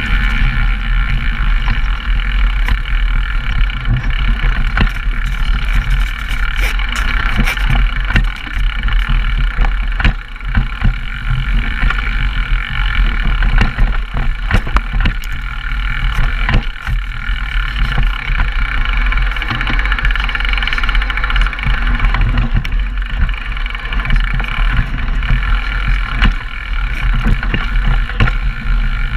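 A downhill mountain bike ridden fast over rough dirt trail, heard through two action cameras' microphones. Wind rushes and rumbles steadily on the mics over tyre noise, with frequent sharp knocks and rattles from the bike.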